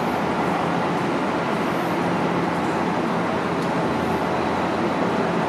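Alstom Citadis Spirit light-rail train standing at the platform with its doors open, its onboard equipment giving a steady hum and rush.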